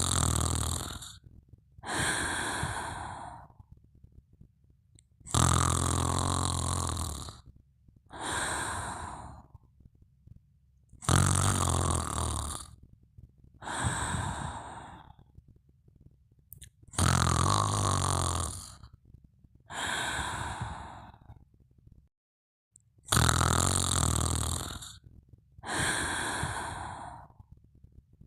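A sleeper snoring steadily. A loud snore with a low rattle comes about every six seconds, each followed about two seconds later by a softer, breathy breath. There are five such cycles.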